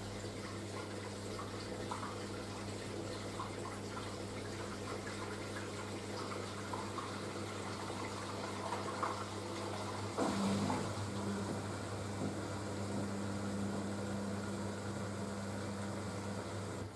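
Panasonic front-loading washing machine on its wool cycle, water running into it with a steady electric hum. The rush of water gets louder about ten seconds in.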